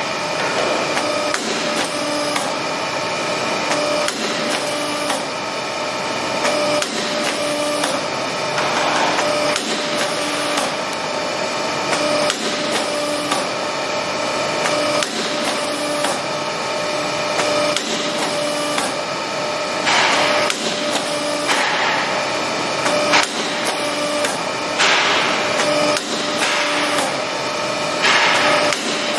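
Hydraulic CNC tube-punching machine running, a steady machine hum with repeated punch strokes as its twin rectangular punch perforates metal box-section tube.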